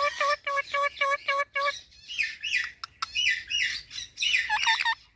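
Chestnut-tailed starlings calling: a quick run of about eight short, identical notes, then a stream of varied chattering with falling whistled notes.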